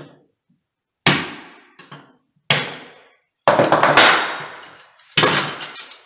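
Claw hammer striking a metal electrical outlet box to knock out a knockout disc for a conduit: a string of sharp metallic blows, about one a second with a quick double hit near the middle, each ringing briefly.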